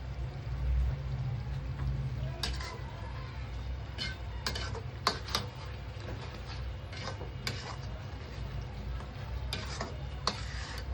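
Irregular sharp clicks and knocks of a metal utensil against a cooking pot while curry is stirred, over a steady low rumble.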